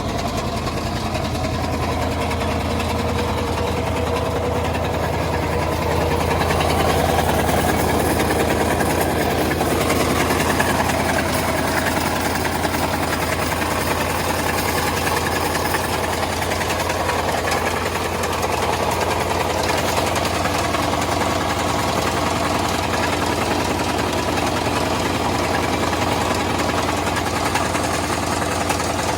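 Two-door Chevrolet Tahoe engine idling with a fast, even knocking running through it. The owner doesn't know what the noise is; others suspect a loose flywheel or flywheel bolt.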